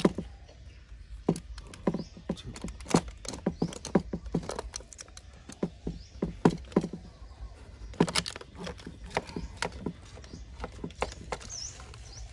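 Fork and knife cutting a rack of barbecued ribs on an aluminium-foil-lined tray: irregular clicks, taps and scrapes of metal cutlery against the foil, with a run of louder clicks about two thirds of the way through.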